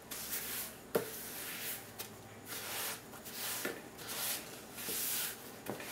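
A spatula scraping and stirring granulated sugar and coconut oil in a large mixing bowl: repeated short scraping strokes, with a sharp knock about a second in and a few fainter knocks later.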